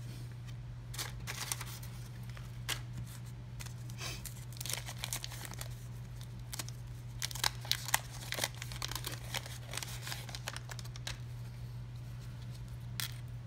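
Wax paper wrapper of a 1986 Topps baseball card pack being crinkled and torn open, in irregular bursts of short crackles, over a steady low hum.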